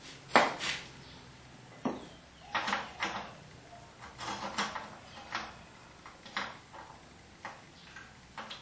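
Irregular metal clicks and knocks, about ten over several seconds, as a hand works a fitting on the side of a steel wood-gasifier cylinder.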